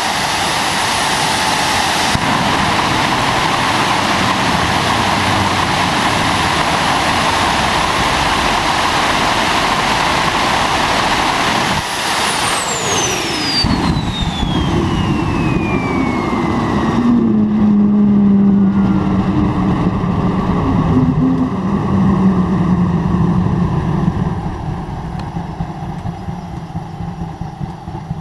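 Homemade turbojet engine with afterburner running hard: a loud roar with a high steady turbine whine. About twelve seconds in the whine begins to fall steadily as the turbine slows, and a second later the hiss cuts off, leaving a lower rumble that eases off near the end.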